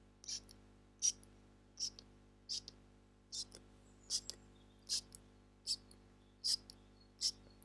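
Close-miked ASMR mouth sounds into a clip-on lavalier microphone: a steady series of about ten short, crisp, hissy clicks, roughly one every second.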